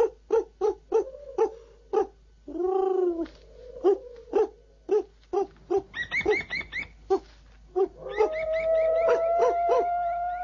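A man imitating animal calls with his voice: a run of short hoots about two or three a second, a rising-and-falling coo, a quick burst of high chirps about six seconds in, then a long wavering cry near the end.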